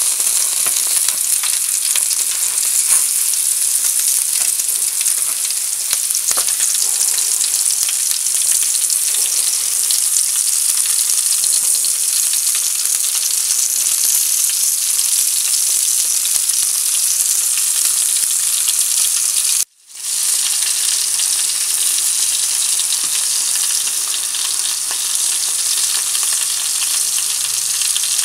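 T-bone steaks sizzling steadily in perforated aluminium grill trays on a grill, with a few faint crackles; the sizzle cuts out for a moment about two-thirds of the way through and then resumes.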